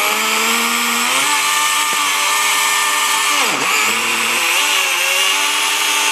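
Husqvarna 120i battery-powered chainsaw running under load as it cuts through a tree trunk. Its steady whine sags in pitch as the chain bites, with one sharp dip about halfway through.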